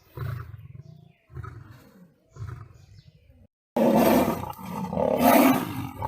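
Big cat giving a series of short, deep grunting roars about a second apart. Then, about four seconds in, an abrupt change to much louder, rougher roaring from big cats fighting.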